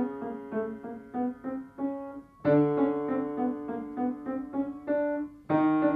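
Steinway Model D concert grand piano playing a left-hand octave exercise: the fifth finger holds a low note while the thumb plays a chromatic line of short notes, about three a second. The pattern starts afresh with a new, louder held note about two and a half seconds in and again near the end.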